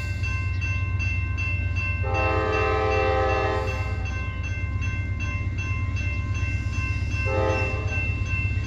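CSX freight locomotive's air horn sounding a chord of several notes for a grade crossing: a long blast about two seconds in and a short one near the end, over a steady low rumble.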